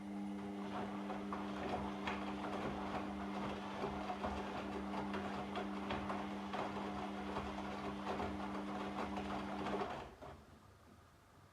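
Washing machine drum turning in the tumble phase of a wash cycle: a steady motor hum under a noisy, clattering swish of tumbling laundry, which stops suddenly about ten seconds in as the drum pauses.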